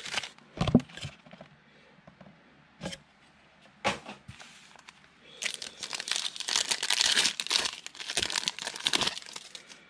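Panini Prizm football card pack wrappers crinkling and tearing as packs from a blaster box are opened: a few separate rustles at first, then several seconds of steady crinkling in the second half.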